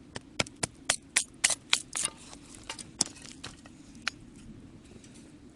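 Wood campfire crackling: a quick run of sharp pops and snaps in the first two seconds, then a few scattered ones, over a low steady hiss.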